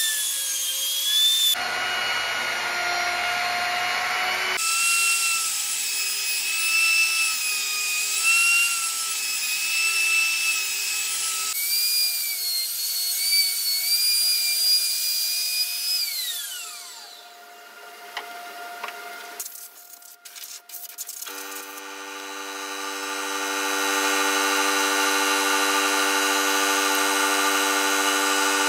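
Router with a flattening bit surfacing the end grain of a wooden cutting board: a steady high motor whine with the rasp of the bit cutting wood, broken by several abrupt jumps. About two-thirds of the way in the whine falls away as the motor spins down, a few clicks follow, and a steady hum then swells in.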